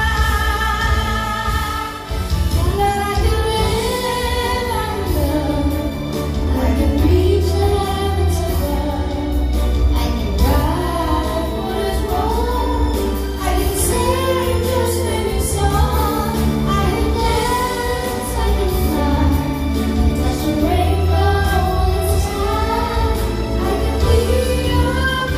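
A woman singing a song over instrumental accompaniment, her melody rising and falling above a steady bass line.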